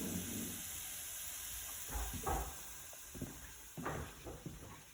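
Onion and garlic sizzling as they sauté in a pot, a steady faint hiss, with a few light knocks on the counter or cutting board about halfway through.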